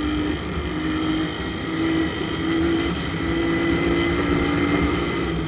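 Small single-cylinder Shineray motorcycle running under way, its exhaust louder and raspier from a hole drilled in the pipe. The engine note holds fairly steady, with small shifts in pitch.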